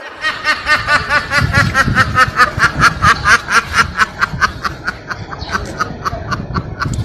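Rapid, high-pitched laughter: a long run of short 'heh' pulses at about five a second, growing weaker in the last couple of seconds.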